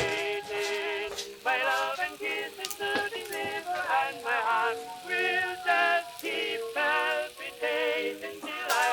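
Background music: an old-time popular song, its melody line with a wavering vibrato over a steady accompaniment.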